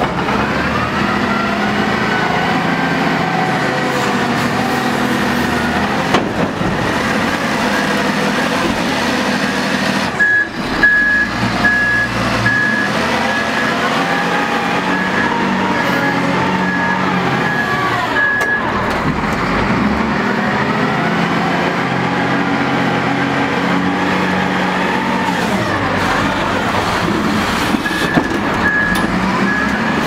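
Diesel engine of a XIAJIN XJ976H block-handler wheel loader running under load, its engine speed rising and falling as it handles a stone block. A reversing alarm beeps in a steady series for several seconds about a third of the way in and again near the end, and a few knocks sound just before the beeping starts.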